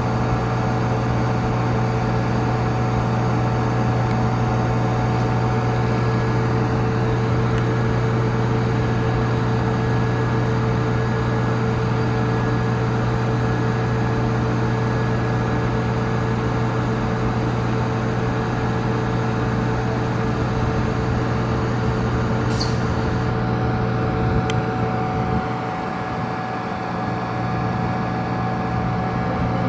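A KTX high-speed train's onboard electrical equipment humming steadily while powered up at the platform, a constant drone with several fixed tones. A couple of faint clicks come about three-quarters of the way through, and the deepest part of the hum dips briefly near the end.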